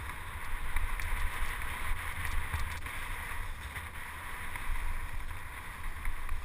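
Wind buffeting the microphone and the rolling noise of a mountain bike moving along a dirt trail. It is a steady rumble and hiss with a few faint ticks.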